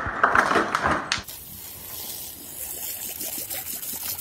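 A rapid clatter of knocks from a refrigerator's ice and water dispenser being pawed at by a dog, then, after about a second, the steady hiss of a garden hose jet spraying water onto grass.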